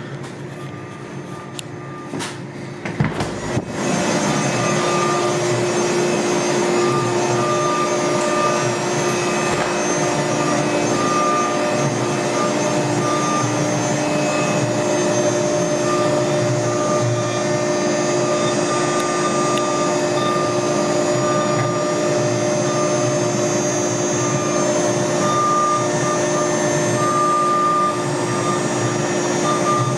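CAMaster Stinger CNC router carving cherry, running loud and steady with a high tone that comes and goes. A few clicks come first, and the machine noise comes in at full level about four seconds in.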